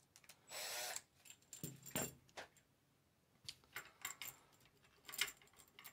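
A cordless drill runs for about half a second, backing out the screw of a metal band-style pole clamp. After that the loosened metal clamp band clinks and jingles in short bursts as it is handled.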